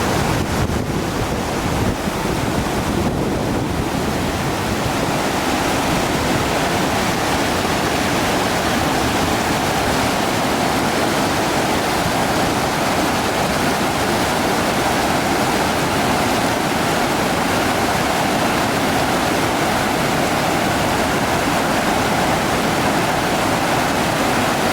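Waterfall: a steady, dense rush of falling water, unbroken throughout.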